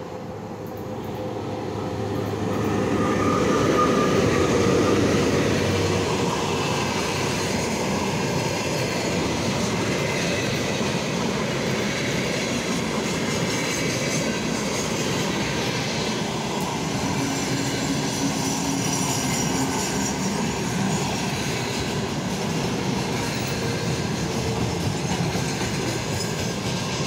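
VL80T two-section electric freight locomotive passing at speed, loudest about four seconds in. A long container train follows, rolling past with a steady rumble and clatter of wagon wheels on the rails.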